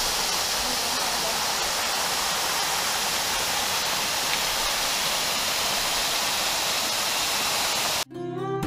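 Waterfall rushing steadily, a dense even noise of falling water that cuts off abruptly about eight seconds in, where acoustic guitar music begins.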